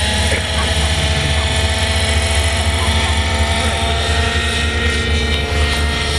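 Radio-controlled scale model UH-1B Huey helicopter in flight: the steady whine of its engine over a low, fluttering rotor beat.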